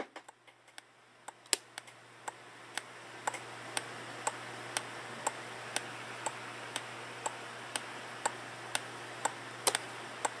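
Turn-signal ticking from a three-in-one reversing horn's sound effect, about two even ticks a second over a steady low hum. A few irregular clicks come in the first second or so before the ticking settles.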